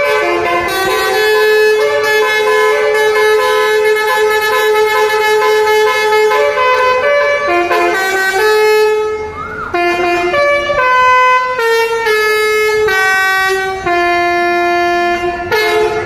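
A bus's basuri telolet multi-tone air horn playing a birthday song, loud held notes stepping up and down in pitch, with quicker shorter notes in the second half.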